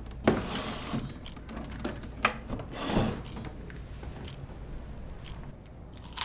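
Wooden desk drawer knocked and slid open, with small clicks and knocks of things handled inside, then slid shut about three seconds in.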